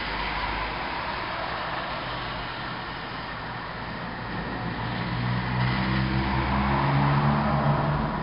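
Steady hiss of rain. Over the second half a car drives past on the wet street: its engine hum and tyre noise swell, then ease off near the end.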